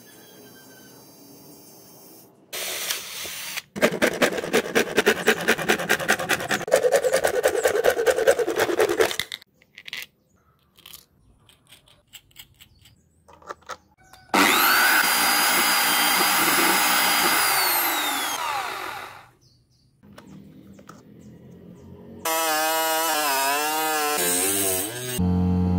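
Work on PVC parts: a run of fast, rhythmic scraping strokes, then an electric drill running for about four seconds and winding down. Near the end, PVC pipe is rubbed back and forth with a wavering squeak.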